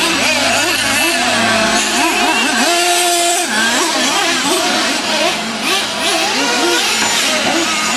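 Several nitro RC monster truck engines racing at once, their high whine rising and falling as the throttles open and close.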